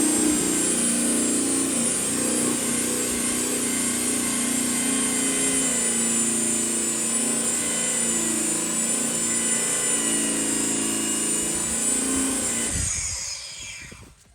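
Katsu 1200 W electric drum sander running at speed setting 4 and sanding the edge of a piece of steel Dexion shelving. It is switched off near the end and winds down, its pitch falling.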